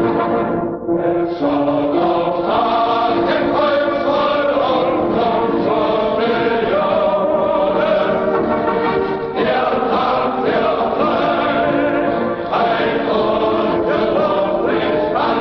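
A choir singing a slow national anthem, long held chords broken by short pauses between phrases.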